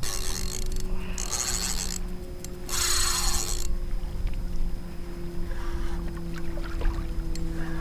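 Drag of a small 4000-size spinning reel buzzing in three short spurts as a hooked king mackerel takes line beside the kayak, over low wind rumble.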